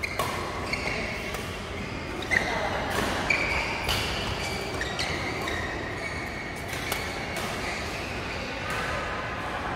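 Badminton rackets striking a shuttlecock back and forth in a fast doubles rally, sharp hits about a second apart, with short squeaks of court shoes on the floor between them, echoing in a large hall.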